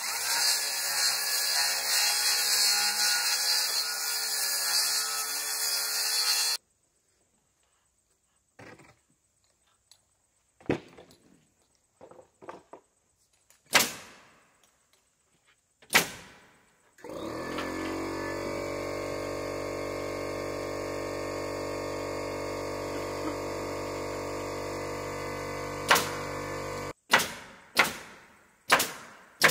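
A circular saw cuts through an OSB sheathing panel for about six seconds. After that a pneumatic nailer fires single sharp shots, fastening the sheathing to the porch roof. An air compressor runs steadily for about ten seconds between the shots, and the nailer fires several quick shots near the end.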